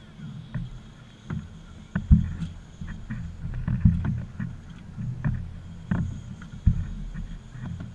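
Irregular knocks and thumps on a small aluminium fishing boat's hull and deck as people move about and handle gear, over a steady low rumble.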